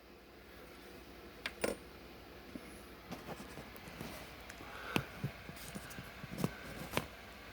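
Faint scattered clicks and light handling noise from small plastic wire connectors and plugs being handled, with a few sharper clicks about a second and a half in and again around five, six and a half and seven seconds.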